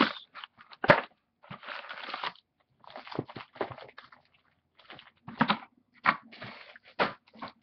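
A box of trading card packs being handled and opened by hand: irregular sharp clicks, crackles and short tearing and crinkling noises of cardboard and pack wrappers.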